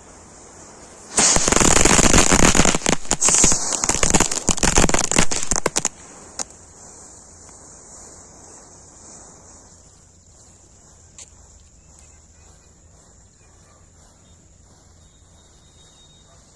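Diwali firecrackers going off in a rapid, dense string of loud cracks for about four and a half seconds, starting about a second in, followed by one last separate pop.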